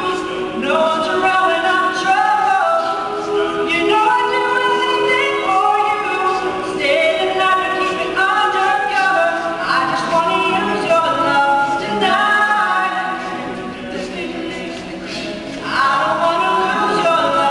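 All-male a cappella group singing in close harmony, several voices holding and moving through chords with no instruments. The singing eases to a softer passage past the middle and swells back to full voice near the end.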